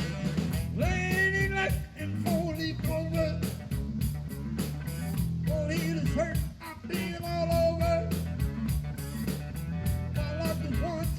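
Live blues band playing an instrumental passage: a lead line that bends up and down in pitch over a steady bass and drum groove.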